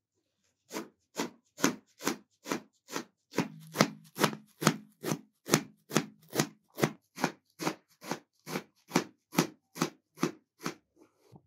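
Knife chopping a heap of fresh coriander leaves on a metal tray, in an even rhythm of about two and a half sharp strokes a second.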